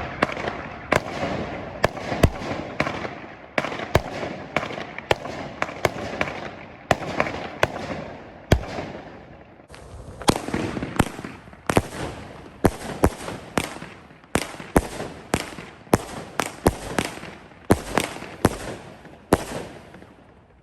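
Hardcore Pyro 'AIGHT' 200-gram, 9-shot consumer firework cake firing: a rapid series of sharp bangs over continuous crackling, with a brief lull about halfway through.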